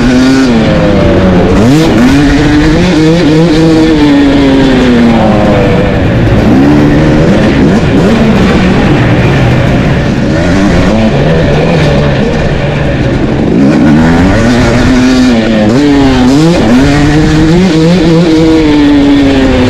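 2021 Husqvarna TC250 single-cylinder two-stroke dirt bike engine with an FMF Fatty pipe and Ti Powercore 2.1 silencer, ridden hard: its loud exhaust pitch climbs and drops again and again as the throttle is opened and chopped.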